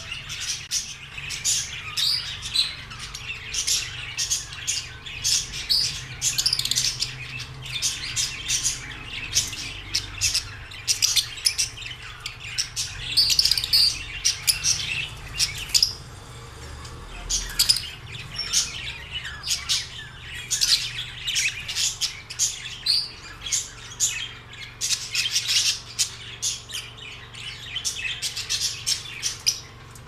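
A flock of caged small parrots, lovebirds among them, chirping and squawking in fast, overlapping high calls many times a second, with a short lull about halfway through.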